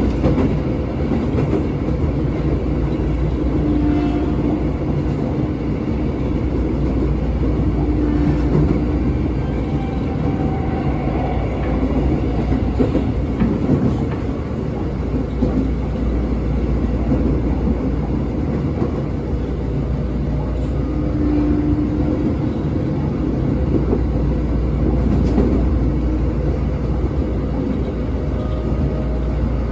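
Interior of a former Tokyo Metro 6000-series electric commuter train running along the line: a steady rumble of wheels on rail and traction motors. Around two-thirds of the way through, the train's typhon horn gives a short blast.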